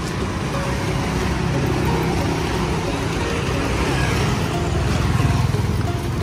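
Motor vehicle engine running in street traffic, a steady low rumble that grows louder about five seconds in.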